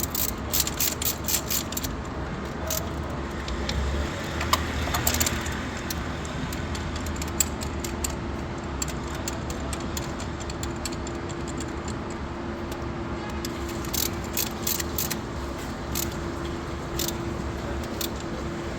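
Metal tools and engine parts clinking and tapping at irregular intervals, in clusters, over a steady low hum.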